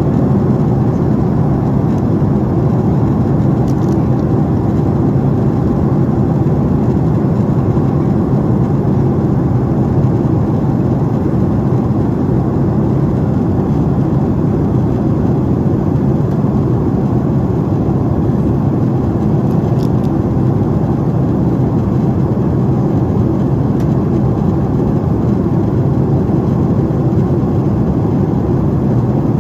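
Steady in-flight cabin noise of a Boeing 767-400: the engines and rushing airflow make an even, unchanging low rumble heard from a window seat by the wing. A few faint clicks sound over it.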